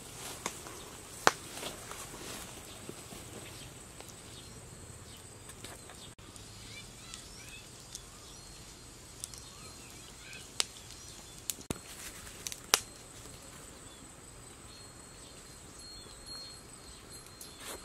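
Forest ambience: a steady high insect drone with a few faint bird chirps, and a handful of sharp pops and crackles from a small campfire.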